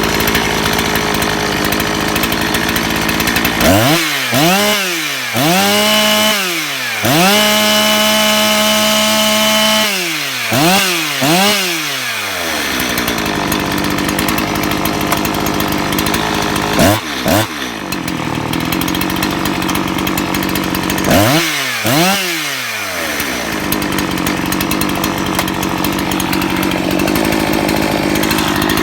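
Ported Husqvarna 261/262XP two-stroke chainsaw idling, then revved. Quick throttle blips start about four seconds in and lead into about three seconds held at full throttle, followed by more blips falling back to idle. Two more short bursts of revving come later.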